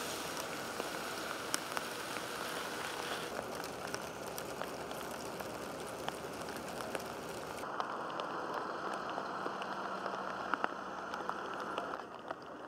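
Rain pattering steadily on hard surfaces, with many scattered ticks of single drops. About two thirds of the way through the sound turns duller and more muffled.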